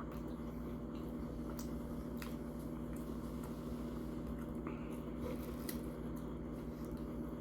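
Quiet room tone: a steady low hum with a few faint, sharp clicks.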